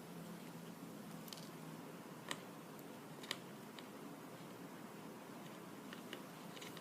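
Quiet room hiss with a few faint, scattered clicks from small parts and tools being handled at a soldering bench.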